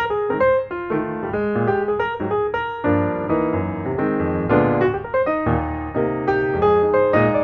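Background piano music: quick single notes, with fuller chords from about three seconds in.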